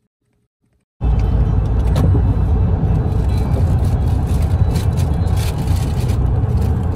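Near silence for about the first second, then steady road and wind noise from inside a vehicle moving at freeway speed, starting suddenly.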